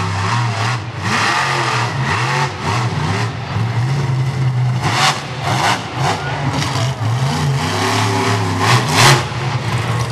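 Monster truck engine revving hard, its pitch rising and falling, with sharp loud bursts about halfway through and again near the end.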